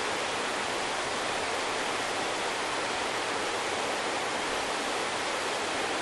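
Mountain stream rushing over rocks into a pool, a steady, even rush of flowing water.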